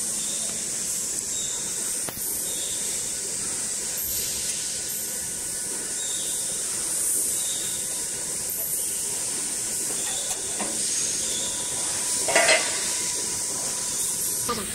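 A steady high hiss of workshop background noise, with one brief louder clatter about twelve seconds in.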